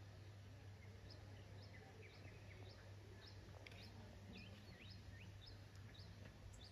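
Faint outdoor ambience: a small bird chirping over and over, short rising notes about two a second, over a low steady hum.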